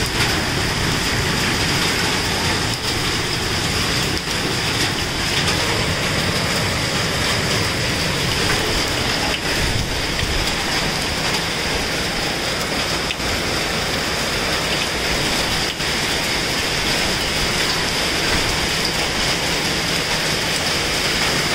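Heavy rain mixed with hail pouring down steadily: an even, dense hiss with a few sharper taps.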